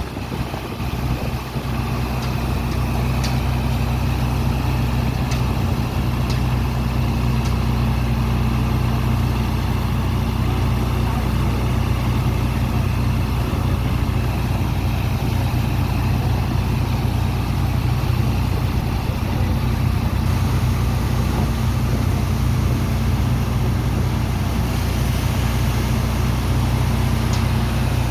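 Sand dredger's heavy diesel engine running steadily at constant speed, a low even drone with a hiss of noise above it.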